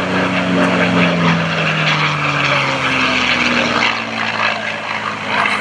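North American P-51D Mustang's Packard Merlin V-12 engine and propeller running at high power during an aerobatic pass, its note falling slowly over the first four seconds.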